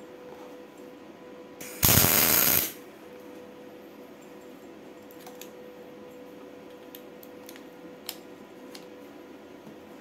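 Steady electrical hum with one loud rushing burst about a second long, a couple of seconds in, then a few light metallic clicks as a MIG welding torch is set against a part held in a lathe chuck.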